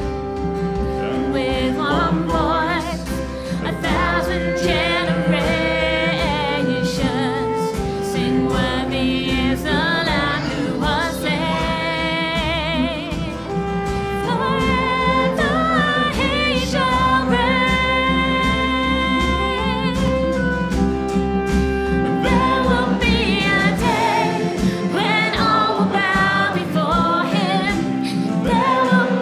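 Live worship band singing and playing a hymn: voices over acoustic guitar, electric guitar, keyboard, drums and congas, with long held sung notes. About five seconds before the end the deep bass drops away and the music thins out.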